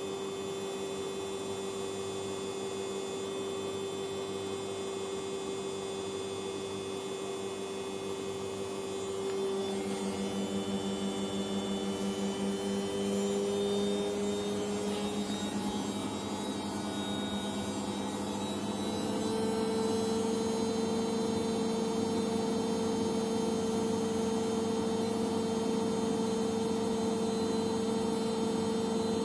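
Samsung Ecobubble WW80J5355MW front-loading washing machine on a spin-only cycle, its motor humming steadily. About ten seconds in, a louder pulsing hum joins as the drum gets going. Around twenty seconds in it steps up to a higher, louder steady whine as the drum builds speed toward its 1200 rpm spin.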